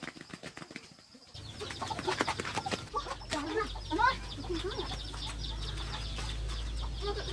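Chickens clucking in short, broken calls, over a steady low hum that starts about a second in.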